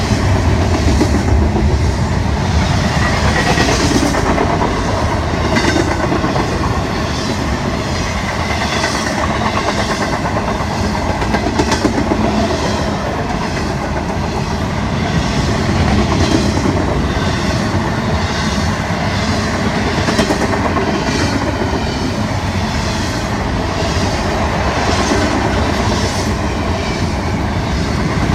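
Florida East Coast Railway double-stack intermodal freight cars rolling past: a steady rumble of steel wheels on rail, with wheels clicking over rail joints in a regular clickety-clack.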